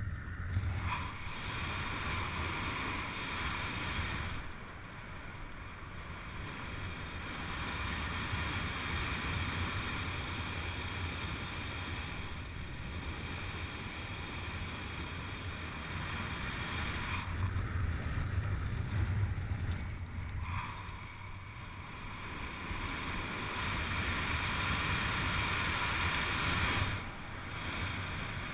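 Wind rushing over the camera microphone during a descent under an open parachute canopy: a steady roar of air with a low rumble that swells and eases every few seconds.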